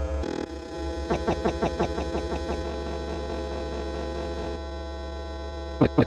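Synthesized electronic sound effect: a steady low hum under a run of short rising blips, about six a second, starting about a second in. A louder run of the same blips begins near the end.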